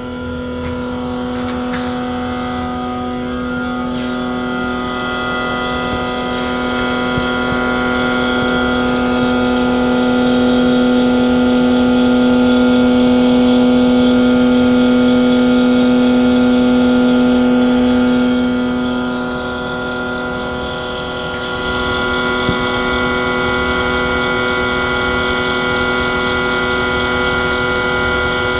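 Vacuum evaporation concentrator running under test: a steady machine hum of several held tones. About two-thirds through, the strongest low tone drops out and the sound eases briefly, then rises again to a steady level.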